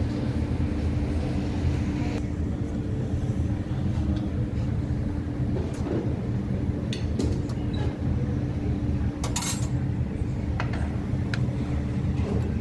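Steady low mechanical hum with a constant tone, and a few light clinks and clicks in the second half.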